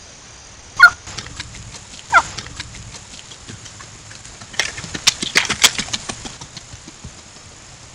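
Wild turkey hen calling twice, two short yelps falling in pitch about a second and a half apart. A few seconds later a quick flurry of sharp crunching clicks follows.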